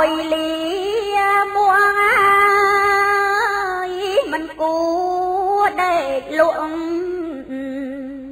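A woman chanting Khmer smot, Buddhist verse sung in long held notes with small wavering turns. There is a short break about four seconds in, then a second phrase that tails off near the end.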